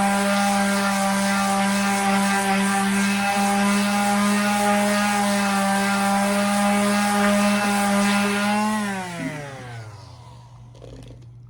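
Electric palm sander running steadily with a high motor whine while sanding wood, then switched off about nine seconds in, its pitch falling as the motor winds down.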